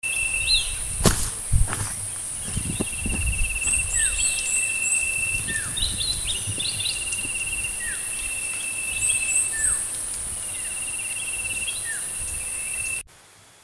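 Countryside ambience of insects and birds: a steady high-pitched insect drone, a pulsing trill that runs several times for a few seconds each, quick strings of short falling chirps and single down-slurred whistles from birds. A couple of low thumps about a second in, and the whole sound drops suddenly to a quiet background near the end.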